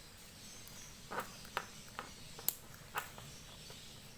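Five faint, sharp clicks and taps spaced roughly half a second apart, from a handheld two-way radio and its plastic parts being handled.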